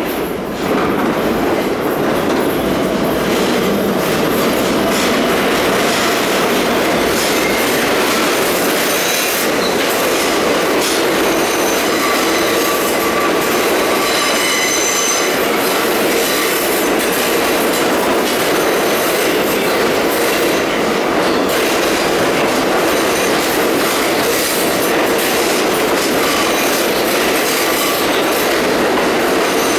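An R62A subway train entering an underground station: steady rolling rumble of the cars, with wheels clicking over rail joints and squealing on the rails, the squeal clearest about midway.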